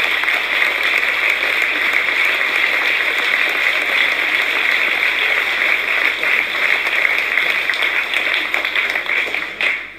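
Audience applauding steadily, dying away just before the end.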